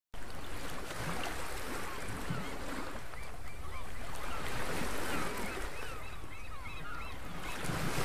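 A flock of birds calling overhead, many short rising and falling calls overlapping, busiest in the second half, over a steady wash of surf and wind noise.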